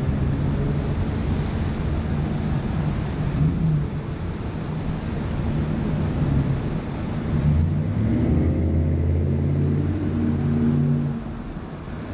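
Low rumble of a motor vehicle's engine, growing louder about three-quarters of the way through and dropping off just before the end.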